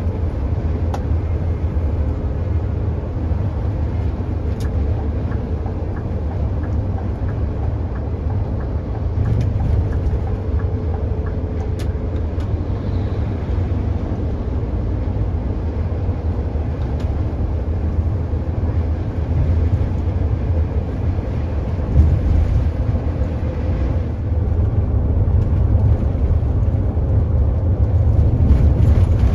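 Steady low rumble of a Scania K410 double-decker coach cruising on a highway, engine and road noise heard from inside at the front. One sharp knock comes about 22 seconds in, and the noise grows a little louder near the end.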